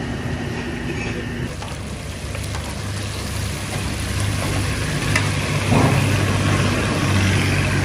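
Fish frying in hot oil with a steady sizzle that grows stronger after about two seconds, over a constant low hum and a few light clicks.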